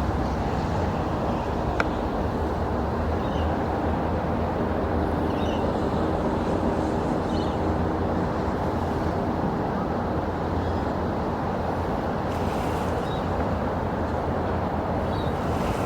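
Boeing 787 airliner's jet engines on final approach, a steady low drone with a few faint humming tones, with a single sharp click about two seconds in.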